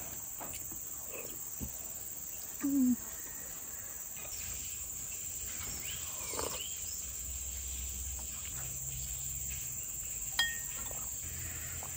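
Steady high-pitched drone of insects in the surrounding vegetation. About three seconds in the eater gives a short hummed "mm", and near the end a metal spoon clinks once against the ceramic bowl with a brief ring.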